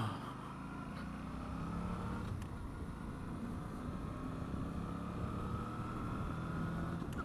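Suzuki V-Strom 650 V-twin engine running as the bike rides along, its pitch rising slowly as it gathers speed, mixed with steady wind and road rush at a helmet-mounted camera.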